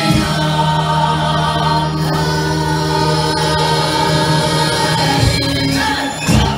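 Music with choir-like singing over a long held low note.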